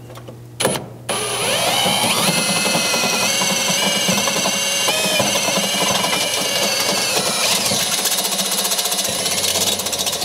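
Cordless drill driving a step bit through the steel frame rail, enlarging a pilot hole to 5/16 inch. After a brief trigger blip, the motor spins up about a second in, rising in pitch, then runs steadily under load as the bit cuts.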